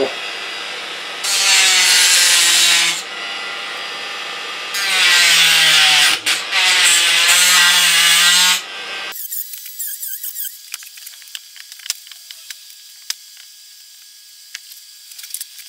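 Handheld rotary cutting tool running with a steady whine, its bit grinding into the fogger's hard potting compound in two loud spells. The tool stops abruptly about nine seconds in, and light clicks and taps of a small hammer on the unit follow.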